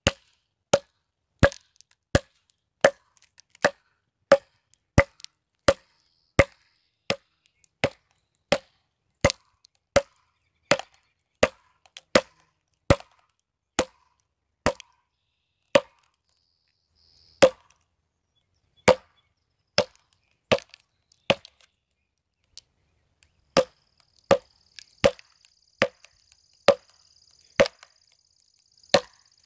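A mallet striking wooden wedges set into the end of a log, a sharp wooden knock about every 0.7 s. About two-thirds through the blows slow and come scattered, then the steady rhythm resumes.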